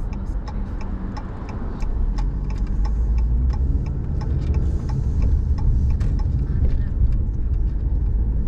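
Car cabin noise while driving: steady low road and engine rumble, with the turn signal ticking at an even rate as the car turns.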